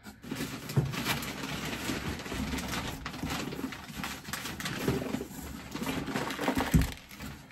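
Rummaging inside a cardboard shipping box: packing paper and cardboard rustling and crinkling, with light knocks as parts boxes are shifted and lifted out.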